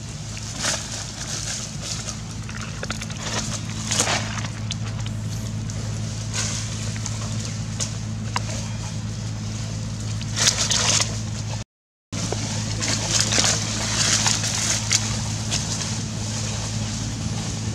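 Dry leaves crunching and rustling in short bursts as long-tailed macaques move about in the leaf litter, over a steady low hum.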